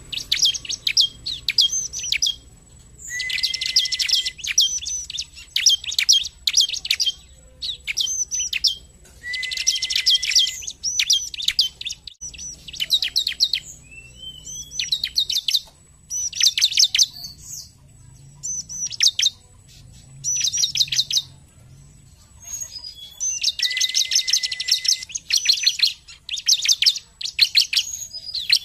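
Bar-winged prinia (ciblek) singing: phrases of fast, high chirps about a second or two long, repeated with short pauses, with a few longer, denser trilled bursts.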